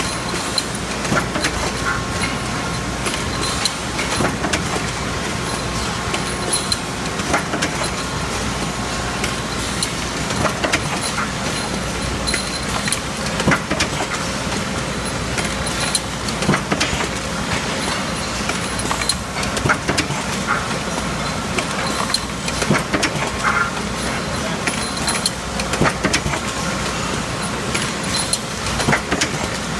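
Industrial pallet-conveyor machine running: a steady mechanical din with frequent irregular metallic clicks and clanks.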